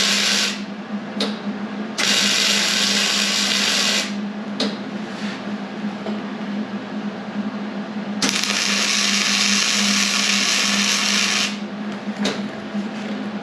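Angle grinder cutting or grinding steel plate in three bursts of loud hiss, the longest about three seconds, with a steady low hum underneath.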